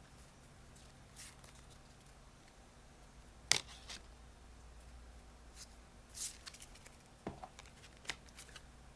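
Pokémon trading cards being handled and flipped through, a scattering of soft rustles and sharp card snaps, the sharpest about three and a half seconds in.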